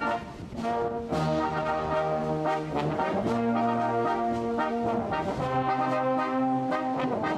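Brass band playing slow, held chords on euphoniums, tenor horns, tubas and trombones, the harmony shifting every second or two.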